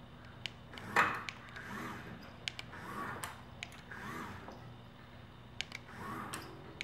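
Small electric motor of a WANTi automatic cat toy humming steadily as it moves its feather wand, with rising-and-falling whirring swells about once a second. Scattered sharp clicks and knocks sound over it, the loudest about a second in.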